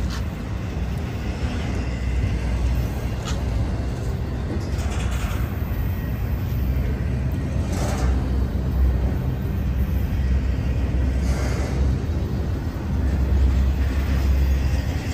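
Double-stack container freight train rolling past close by: a steady heavy rumble of wheels on rail, with a few brief sharper noises from the train along the way.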